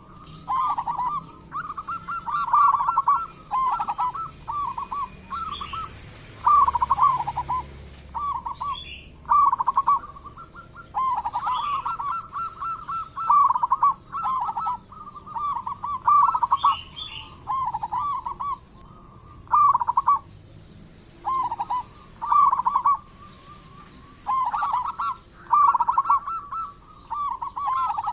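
Zebra dove (perkutut) cooing over and over: short, stuttering, trilled phrases follow one another every second or two. Faint high chirps of small birds sound behind them.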